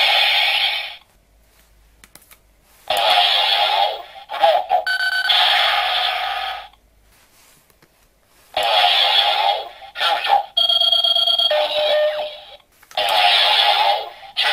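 Chalice Rouzer toy transformation belt playing its electronic sound effects through its small speaker: a loud electronic phrase repeating in bursts of about two seconds with short gaps. About eleven seconds in, a different phrase with steady tones plays as a Rouse card is swiped through the buckle.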